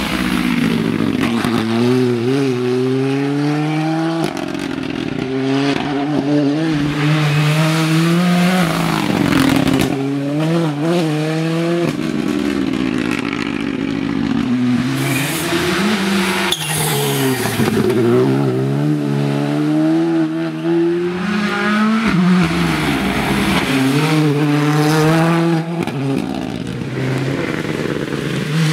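Hyundai i20 N Rally2 rally car's turbocharged four-cylinder engine revving hard, its pitch climbing and dropping again and again as the car shifts up through the gears, lifts and brakes for corners.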